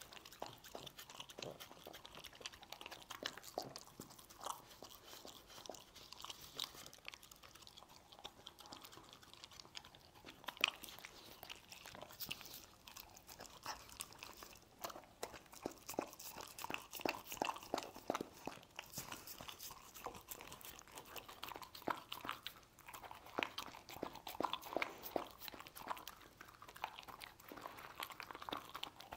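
A dog eating stir-fried meat, close to the microphone: an irregular, continuous run of bites, chewing and crunches, several a second.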